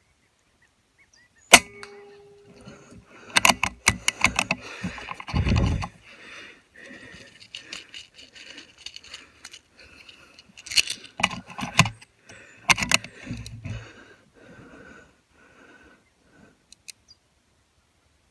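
A single sharp shot from a 5.5 mm (.22) air rifle about one and a half seconds in. It is followed by bursts of clicking and rattling handling noise from the rifle and its scope as the gun is moved, with a dull thump among the first burst.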